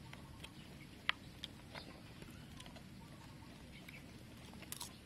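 A few sharp clicks of a metal spoon against a wooden tray while scooping food, the sharpest about a second in and a quick cluster near the end, over faint background noise.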